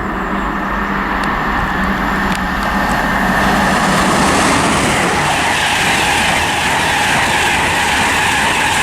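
An InterCity 225 express, class 91 electric locomotive with its coaches, passing at speed: a steady rush of wheel, rail and air noise that grows louder about three seconds in.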